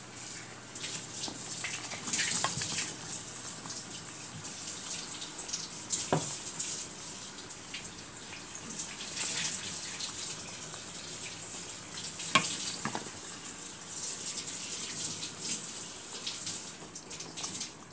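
Pot of tom kha soup simmering and stirred with a spoon: a steady bubbling hiss with irregular crackles, and a few sharp knocks of the spoon against the stainless steel pot.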